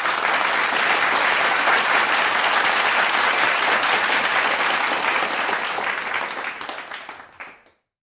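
Audience applauding. The clapping fades from about six seconds in and cuts off abruptly near the end.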